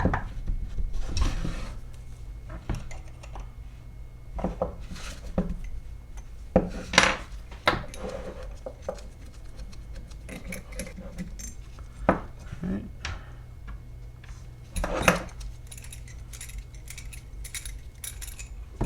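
Small steel vise parts, screws and a hex key clinking and knocking irregularly against each other and the bench as a mini vise is taken apart.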